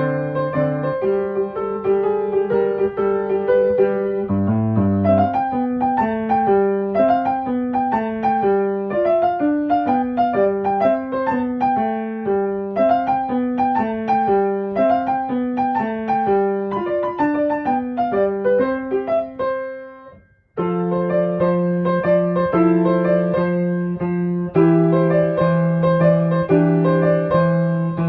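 Background piano music: a flowing melody of single notes over held bass notes. It fades out briefly about two-thirds of the way through, then starts again.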